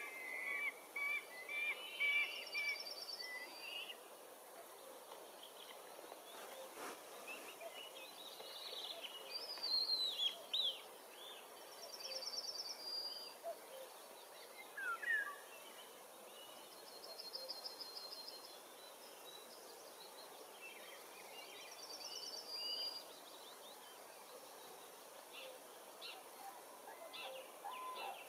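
Wild birds calling and singing over a faint steady outdoor background: a short, high, rapid trill returns every five seconds or so, with assorted chirps and falling whistled notes between.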